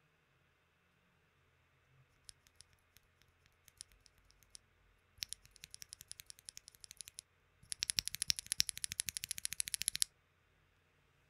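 A Kiwi mechanical keyboard switch fitted with an unlubed UHMWPE linear stem, pressed repeatedly by hand, clacking sharply at each bottom-out and return. The presses start sparse and irregular, quicken a few seconds in, then run fastest and loudest, about ten a second, before stopping near the end.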